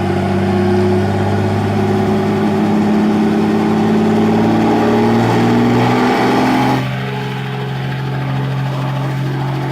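Helicopter engine and rotor running loudly, a steady hum of several tones that rise a little in pitch, as for take-off. About seven seconds in the sound drops suddenly in level and loses its higher hiss.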